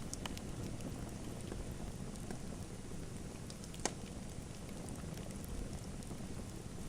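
Wood fire crackling in a fireplace: a steady low rush of flames with scattered small pops, one sharper pop about four seconds in.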